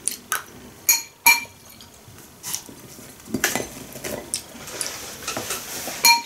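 Metal spoon clinking and scraping against a glass bowl while scooping food: four ringing clinks in the first second and a half, softer scraping in the middle, and another clink near the end.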